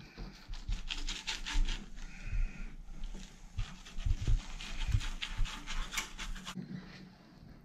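Knife blade scraping along a striped bass fillet as it is cut away from the skin on a plastic cutting board, in quick rasping strokes several times a second that stop a little before the end.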